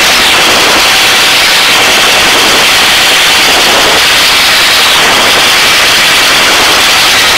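Helicopter noise heard over the crew intercom: a loud, steady hiss with no break.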